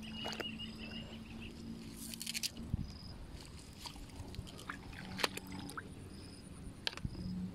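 Faint water sloshing and squishing in a weedy swamp as a hooked fish is worked in through the water hyacinth, under a steady low hum. A quick rattle of sharp clicks comes about two seconds in, with single clicks later.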